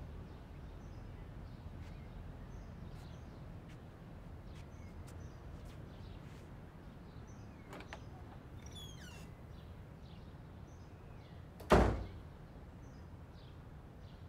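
A single loud thud about twelve seconds in, over a steady low rumble with faint bird chirps.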